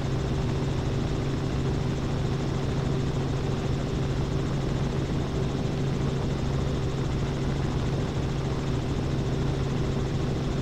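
Robinson R44 helicopter in cruise flight, heard from inside the cabin: a steady drone of rotor and piston engine with a constant low hum, unchanging throughout.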